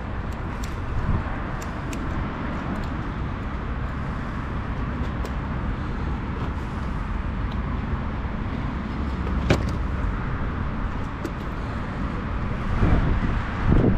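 Strong wind buffeting the microphone: a steady low rumble, with a single sharp click about nine and a half seconds in.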